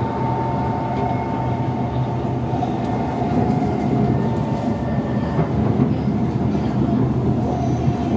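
C151 MRT train heard from inside the carriage, running at speed: a steady rumble of wheels on rail and motor hum. A faint whine fades out over the first couple of seconds.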